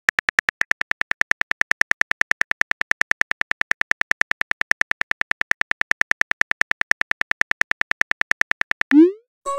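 Rapid, even keyboard-tap clicks of a phone typing sound effect, about eight a second, as a text message is typed out. About nine seconds in the clicks stop and a short rising swoosh sounds as the message is sent.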